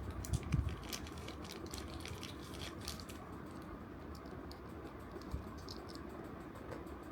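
Small plastic toy parts being handled and fitted together: a couple of soft knocks at the start, then quick light clicks and scratches, thinning out after about three seconds.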